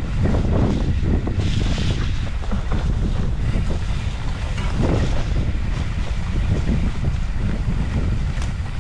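Wind buffeting a body-worn camera's microphone: a loud, steady low rumble, with a brief hissy gust about a second and a half in.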